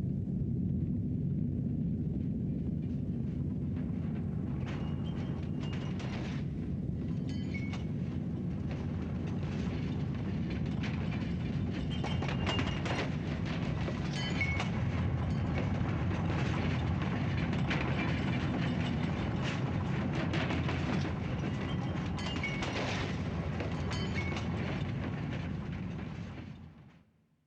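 Earthquake sound effect: a steady deep rumble, with irregular rattling and clinking of shaken objects joining about five seconds in. It fades out near the end.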